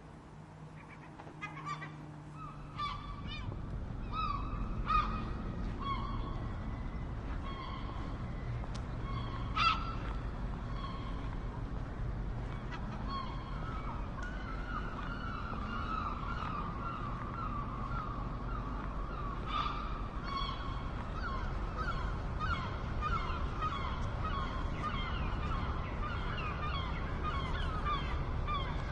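Gulls calling: scattered single calls at first, then from about halfway a dense chorus of short, overlapping calls, over a steady low rumble.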